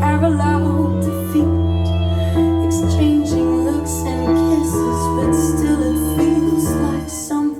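Music: a slow, gentle instrumental passage of a pop song, with sustained notes over a steady bass.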